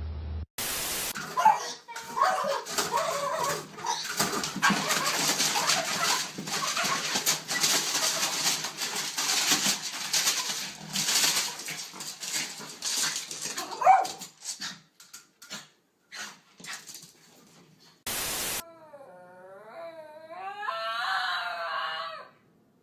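Dog whimpering and yipping over a noisy, clattering stretch, then a long, high, wavering whine near the end.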